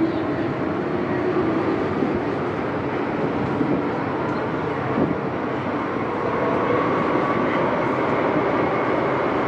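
MTR M-Train electric multiple unit running at speed, heard from inside the car by the door: a loud, steady rush of wind and running noise. About six seconds in, a motor whine comes in and the noise gets a little louder.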